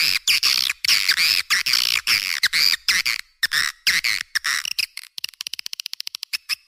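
Swiftlet lure-call recording: rapid high chirps and twittering trills, turning to a fast run of clicks, about ten a second, past the middle. It is the 'panggil' call played to draw swiftlets to a nesting house.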